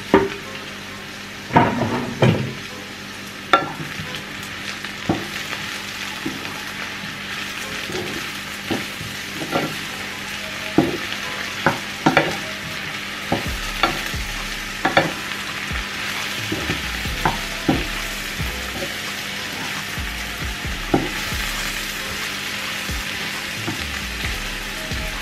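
Sliced mushrooms with garlic and onion sizzling as they sauté in a frying pan. Irregular knocks and scrapes of a wooden spoon against the pan come as they are stirred, the loudest a few seconds in.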